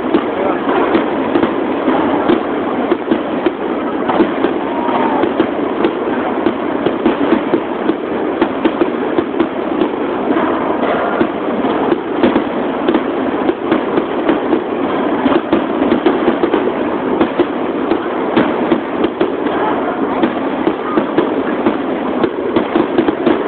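Aerial firework shells bursting overhead in a dense, continuous barrage of bangs and crackling, heard from close to the launch site.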